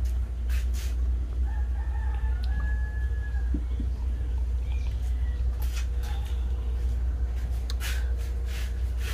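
A rooster crows once, faintly, in one drawn-out call of under two seconds that starts about a second and a half in, over a steady low rumble. A few short clicks and rustles come near the end.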